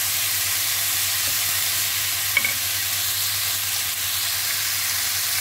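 Marinated pork belly pieces sizzling in hot oil in a pot while being stirred with a wooden spatula: a steady frying hiss, with one brief click about two and a half seconds in.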